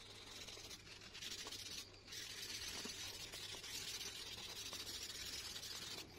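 Hand rubbing over drawing paper, smudging the coloured-pencil shading: a faint steady hiss with a short break about two seconds in, stopping just before the end.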